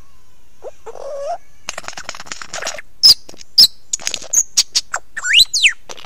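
Lyrebird singing at very close range: a varied run of calls and dense rattling notes. About halfway through come two very loud, sharp high notes, and near the end a whistle that sweeps up and then down.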